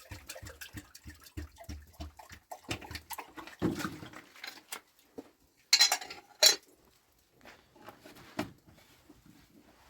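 Irregular knocks and clatters from things being handled, with two loud, sharp clatters about six seconds in.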